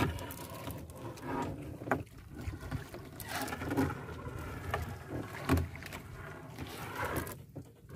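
Wet trammel net being hauled in by hand over a small fishing boat's side: irregular splashing and rustling of net and water, with a few knocks, the loudest a dull thump about five and a half seconds in.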